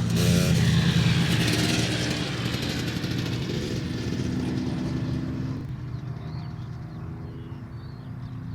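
Piston engine of a propeller-driven WWII fighter flying past, loud in the first two seconds and then fading away as it draws off. Faint bird chirps come through near the end.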